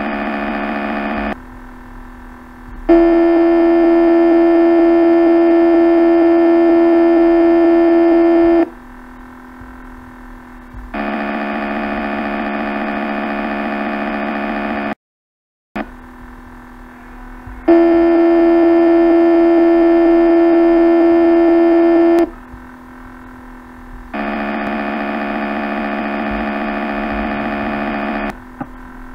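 Synthetic motor hum from circuit-simulation software, running as the simulated three-phase asynchronous motor drives the cart. It is a steady buzzing tone that comes and goes in stretches of a few seconds, switching between a louder, lower-pitched hum and a softer one. There is a brief total dropout about halfway through.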